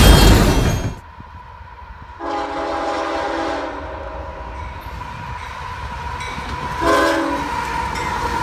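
Nathan K5HL-family multi-chime locomotive air horn sounding a chord of several notes at once. It comes in sharply about two seconds in, holds and eases, then gives a short stronger blast near the end, with a steady low rumble underneath. A loud noisy sound cuts off about a second in.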